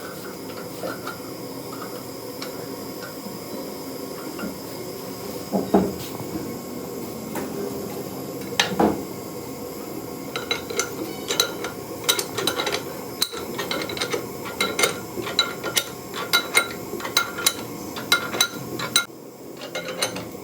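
Metal hand tools clinking and tapping against metal, irregular, after a couple of duller knocks and growing frequent from about ten seconds in, with short ringing after each strike.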